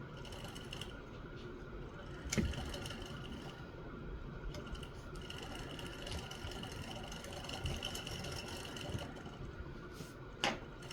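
Small sharp clicks of steel screws and a screwdriver being handled and set into a revolver's side plate, two louder clicks about two seconds in and near the end, over a steady background hum.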